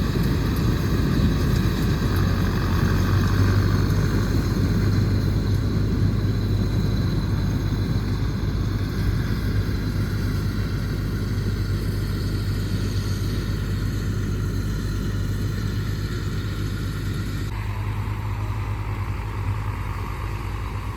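Tractor-driven mini combine harvester running steadily: the diesel engine's hum with the machine's mechanical noise over it. About seventeen seconds in, the higher-pitched part of the sound drops away suddenly, and the engine keeps running.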